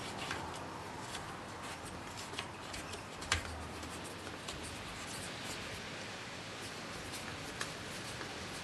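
Faint scratchy rubbing and light clicks of a new bulb holder being twisted and screwed down by hand onto a chandelier arm's metal cup, with one sharper click a little over three seconds in and a smaller one near the end.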